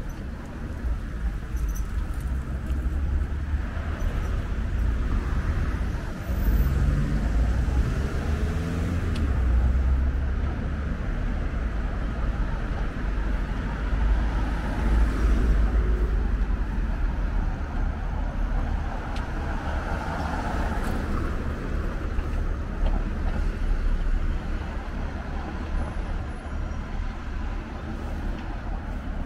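City street traffic: passing cars and other vehicles with a steady low rumble.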